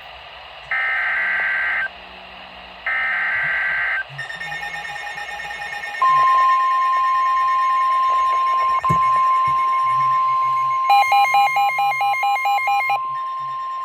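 NOAA Weather Radio emergency alert: two rasping SAME digital header bursts about a second each, then weather radios' alert beeping and, from about six seconds in, the long steady 1050 Hz warning alarm tone. A faster pulsing beep, about four a second, joins it for a couple of seconds near the end. Together these mark the start of a new warning broadcast.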